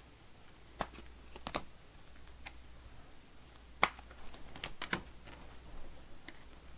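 Scattered light clicks and taps, about eight irregular ones over several seconds, the sharpest a little under four seconds in.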